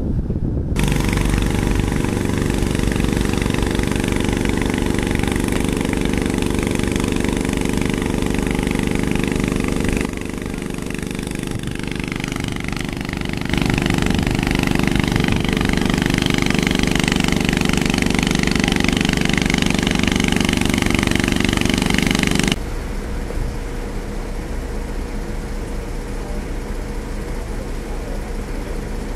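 Engine of a fire-brigade motor pump running steadily while pumping out floodwater. It drops abruptly in level about ten seconds in and comes back loud a few seconds later. About twenty-two seconds in it falls to a quieter steady noise.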